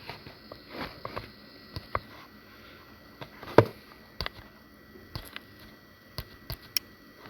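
Scattered light clicks and taps from handling the drone's controller and phone while moving through the app's settings, with one sharper knock about three and a half seconds in, over a faint steady high hum.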